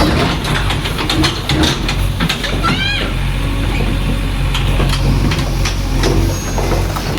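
JCB 3DX backhoe loader's diesel engine running steadily, with a string of sharp clanks and knocks in the first few seconds and a short rising whistle-like call about three seconds in.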